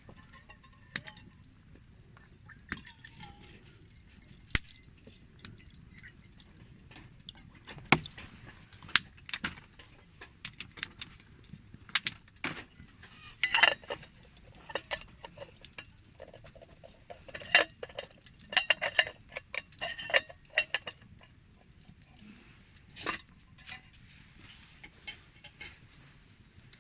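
Irregular sharp clinks and knocks of metal camp cookware and utensils being handled, coming in clusters that are busiest in the middle.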